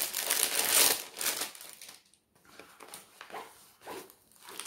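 Clear plastic wrapping crinkling loudly as a rolled diamond painting canvas is handled and unwrapped. After about a second and a half it gives way to quieter rustles of the canvas being unrolled.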